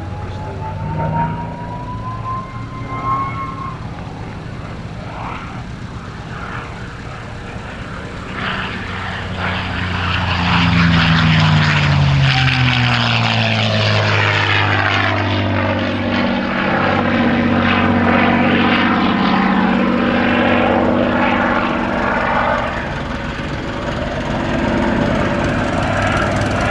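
North American P-51D Mustang's Packard Merlin V-12 engine and propeller in a flyby: the engine drone grows louder about ten seconds in and drops in pitch as the aircraft passes, then stays loud as it flies on.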